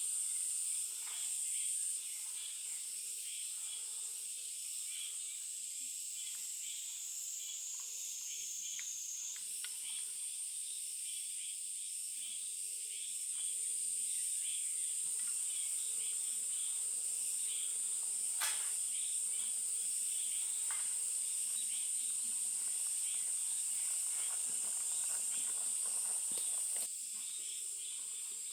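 Insects trilling in one continuous high-pitched buzz, with many faint short chirps beneath it. The pitch sags a little, then jumps back up about nine seconds in.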